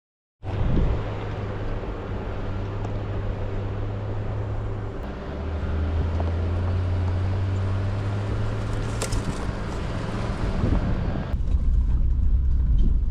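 Vehicle engine running at low speed, a steady low hum that drops in pitch about five seconds in, with a sharp tick about nine seconds in.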